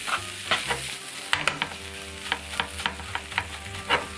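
Metal ladle stirring and pressing kimchi and pork-belly fried rice around a nonstick frying pan: irregular scrapes and taps against the pan a few times a second, over a light sizzle from the hot pan.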